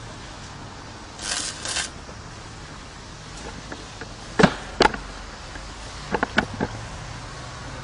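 Short crackling hiss of a stick-welding arc laying a tack weld on a steel profile-tube gate frame, about a second in. Later come two sharp metal knocks, the loudest sounds, then a few lighter clicks.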